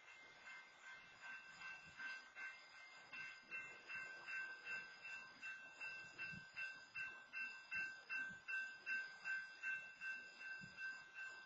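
Railroad grade-crossing warning bell ringing steadily, about three strikes a second, as the crossing signals stay active with the gates down across a stopped freight train.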